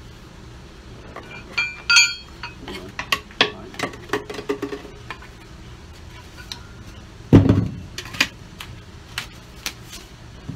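Steel chisel bits for an electric breaker hammer being handled: scattered metal clinks and clicks, with one ringing strike about two seconds in. A heavy thud comes a little past seven seconds, as something is set down.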